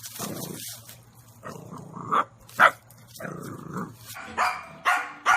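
A dog barking: two sharp barks a little past the middle, then a quicker run of barks about half a second apart near the end, with softer, lower sounds between them.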